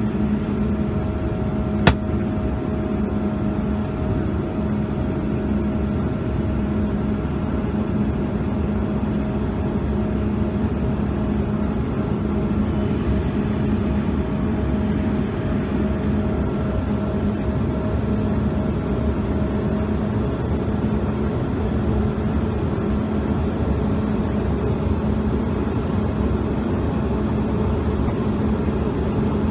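Steady cabin noise of a Bombardier CRJ-200 airliner in flight, heard from inside the cabin: a constant rush of airflow and its two rear-mounted turbofan engines, with a steady low hum and fainter higher tones. A single sharp click about two seconds in.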